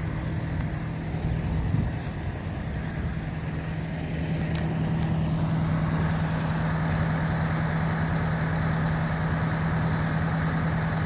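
Aerial ladder fire truck's diesel engine idling: a steady low hum that grows louder about halfway through.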